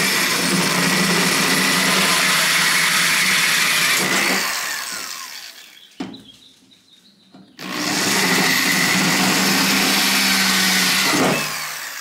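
Power drill running at speed, boring holes in a car door for a power door lock actuator's mounting bracket. There are two runs of about four seconds each, and each ends with a falling whine as the motor winds down. Between them comes a short pause with a click.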